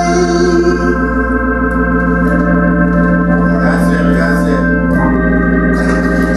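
Organ playing sustained chords.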